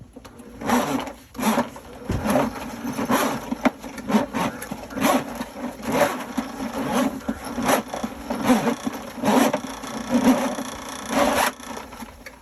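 Electric drain-cleaning machine (power sewer snake) running, its motor humming with a rhythmic knock about every second. It starts just after the beginning and stops near the end.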